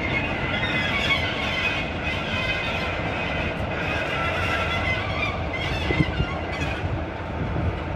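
Class 47 diesel-electric locomotive running and moving slowly past on the track. Its engine rumbles steadily, with a faint high tone on top.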